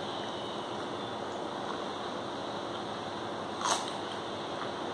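Steady background hiss while a man eats by hand from a plate, with one sharp click or mouth smack about three and a half seconds in.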